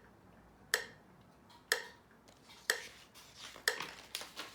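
Finger snaps keeping a steady beat, about one a second, during the pause left for the children to repeat the letter sound.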